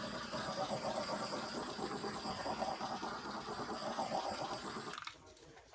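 Handheld torch flame hissing steadily as it is passed over wet poured acrylic paint. It cuts off about five seconds in.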